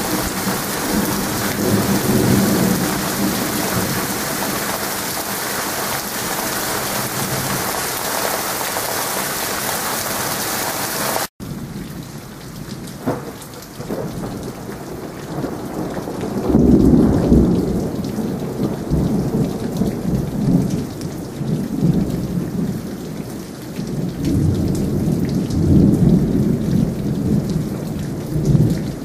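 Heavy thunderstorm rain pouring steadily. About eleven seconds in, it cuts off for a moment and comes back lighter, and two long rolls of thunder follow, one at about 16 seconds and another at about 25 seconds.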